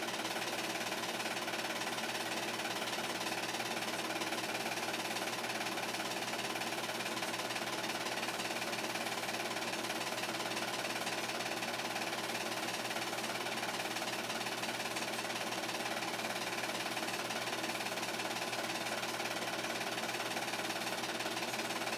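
8mm film projector running with a steady mechanical whir.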